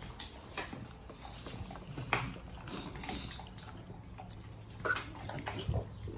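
American bully dogs eating chunks of cooked meat from steel bowls: irregular wet chewing, lip-smacking and licking, with short clicks.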